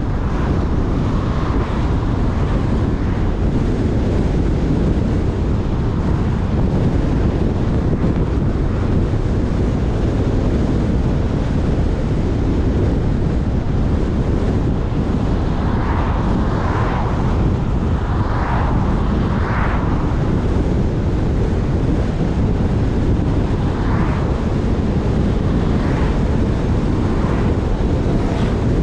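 Steady road and wind noise of a car driving at speed, with wind rushing over the car-mounted microphone. Several short swells come partway through and again later as oncoming traffic passes.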